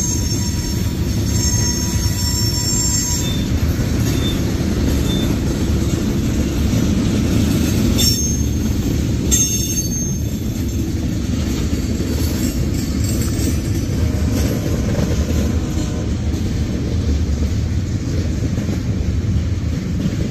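Freight train tank cars rolling past, a steady low rumble of steel wheels on rail with faint high wheel squeal in the first few seconds. Two sharp clanks come near the middle.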